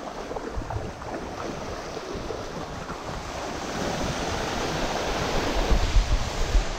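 Shallow surf washing and breaking around a wader's legs, swelling as a wave rolls through about four seconds in, with wind gusting on the microphone near the end.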